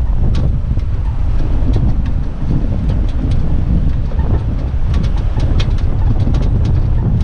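Off-road vehicle driving slowly through a shallow stony stream, heard from outside on the bonnet: a steady low rumble of engine, tyres and wind buffeting the microphone, with scattered sharp clicks that come more often in the second half.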